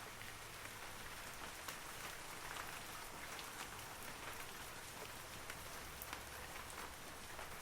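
Steady rain falling on forest trees, a dense patter of single drops over an even hiss.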